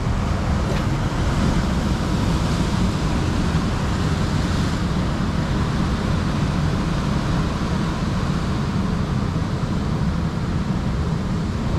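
Sea surf breaking on rocks, with wind buffeting the microphone: a steady, loud rushing noise with a heavy rumble underneath.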